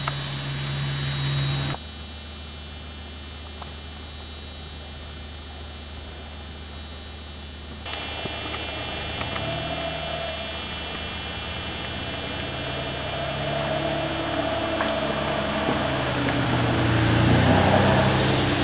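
Eurocopter EC145 helicopter idling on the ground with its turbines running: a steady turbine whine over a low hum, growing louder toward the end.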